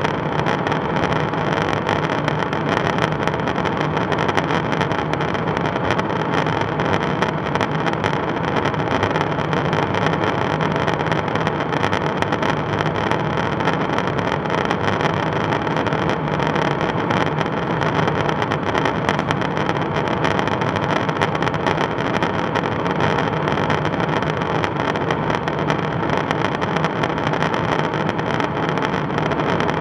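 Steady in-flight cabin drone inside a KC-135 Stratotanker's boom operator pod: a constant rush of airflow and engine noise with an even hum running through it.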